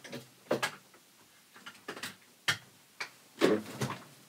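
A handful of separate short clicks and knocks, a few per second, from handling things at a workbench, with a slightly longer rustle near the end.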